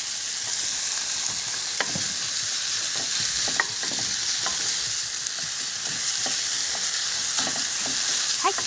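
Ground pork and green peppers sizzling steadily in hot oil in a nonstick wok-style pan, with a few short taps and scrapes of a wooden spatula as the food is stirred.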